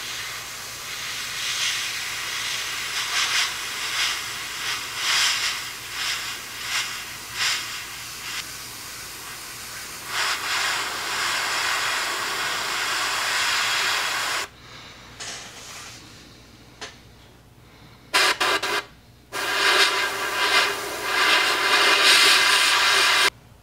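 PS-267 airbrush hissing as it sprays a coverage coat of gray paint. The air pulses on and off for the first several seconds, then runs steady, stops about fourteen seconds in, gives two short bursts, and runs steady again before cutting off sharply near the end.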